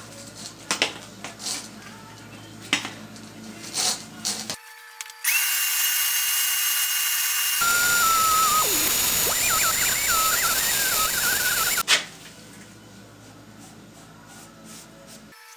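Shop vacuum switched on about five seconds in and running for about seven seconds, with a wavering whistle as air is sucked in while it vacuums metal swarf out of the milling head's groove, then cut off abruptly. Before it, a few knocks and clicks of hose and parts being handled.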